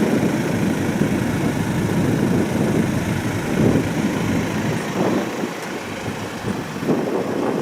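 A 4x4 vehicle driving, with a steady engine and road rumble that rises and falls a little.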